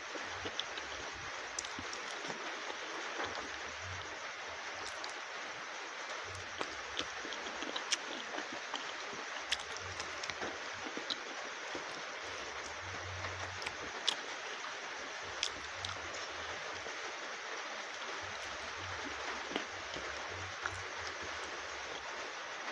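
Close-miked mouth sounds of eating saucy masala chicken wings: wet lip smacks, sucking and chewing, heard as scattered sharp clicks over a steady hiss.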